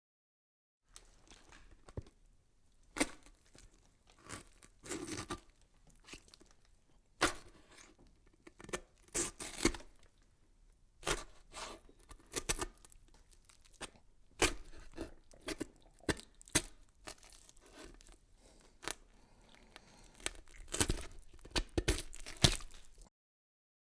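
Irregular crackling and rustling with many sharp clicks at an uneven pace, starting abruptly about a second in and cutting off suddenly near the end.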